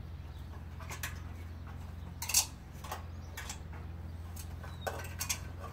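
Giant schnauzer's claws and paws clicking and knocking on the rungs of an aluminium ladder as it climbs down, a handful of separate metallic clinks with the loudest a little over two seconds in, over a low steady hum.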